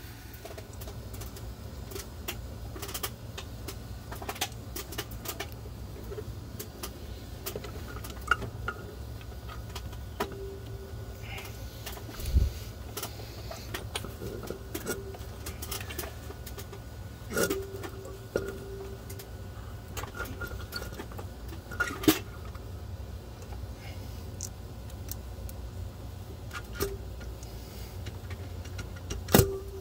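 Scattered metallic clinks and knocks, a few ringing briefly, with several louder knocks, as a Duramax cylinder head is handled and set down over ARP head studs onto the head gasket. A steady low rumble runs underneath.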